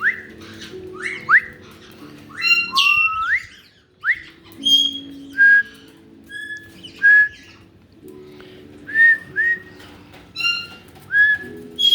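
Caique parrots whistling: a run of short, sharp upward-sliding whistles, then shorter level whistle notes coming about once a second.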